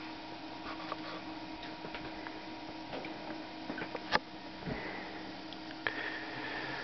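Steady electrical hum and whine from a running plasma globe's flyback power supply and cooling fan, with scattered small clicks and knocks and one sharp click about four seconds in.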